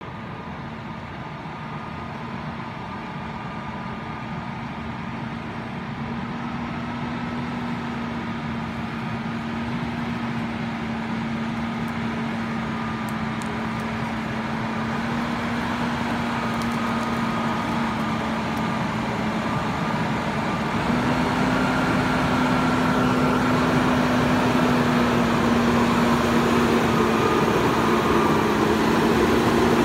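Case IH Magnum 370 CVX tractor's diesel engine running as the tractor drives closer, growing steadily louder, its steady engine note stepping up and down a little in pitch.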